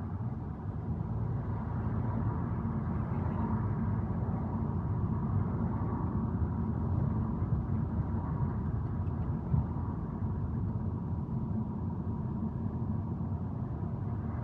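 Car driving along a city street, heard from inside the cabin: a steady low rumble of engine and tyre noise.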